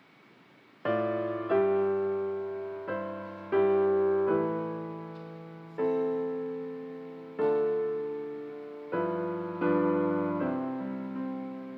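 Piano-sounding keyboard playing slow chords, starting about a second in; each chord is struck and left to fade before the next, every one to two seconds.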